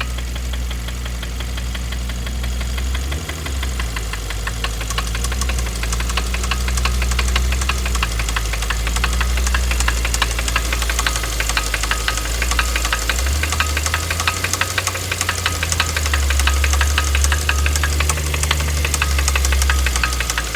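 2012 Kia Optima SX's 2.0-litre turbocharged four-cylinder idling with a loud, rapid, regular knock. This is the sound of the recalled engine failing: a dealer heard it and said the engine needed replacing.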